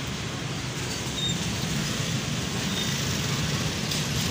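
Steady street traffic noise: a continuous low hum under an even hiss.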